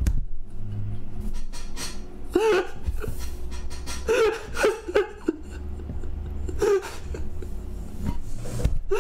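A man laughing in short bursts of giggles, three clusters of them, over a low steady hum.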